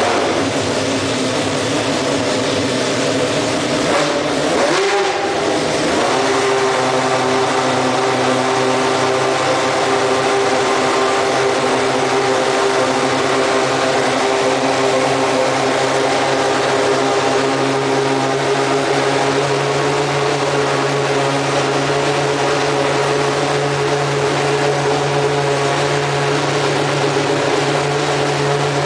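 Superleague Formula car's V12 racing engine idling cold while warming up, at a raised idle of roughly 1,800 to 2,600 rpm. Its pitch wavers and climbs about five seconds in, then holds steady.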